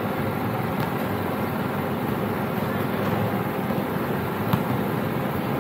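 Steady outdoor street noise like passing traffic, with one sharp knock about four and a half seconds in.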